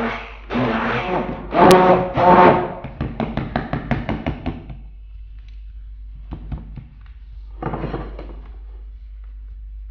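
Handheld immersion blender whirring in short repeated bursts as it purées cottage cheese, sour cream, sugar and eggs into a smooth liquid, then running in a faster rattling stretch before stopping about five seconds in. A few light knocks follow as the blender is put down on the counter.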